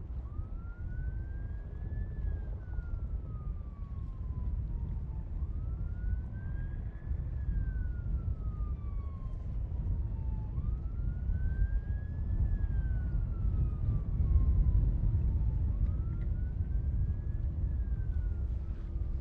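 A siren wailing in slow cycles, four times: each climbs quickly in pitch, then falls slowly over a few seconds, over a steady low rumble.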